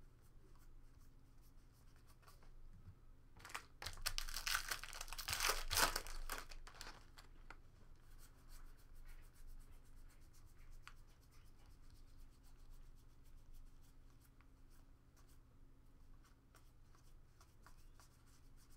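Football trading cards handled and flipped through by hand, with soft scattered card clicks, and a loud burst of crinkling and tearing from a foil card-pack wrapper about four seconds in, lasting a couple of seconds.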